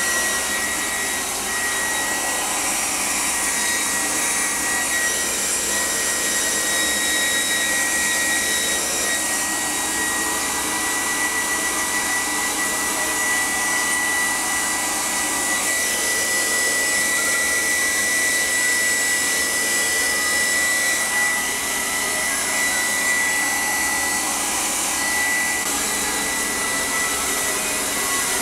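Handheld hair dryer running steadily: a rush of blowing air with a steady high-pitched whine.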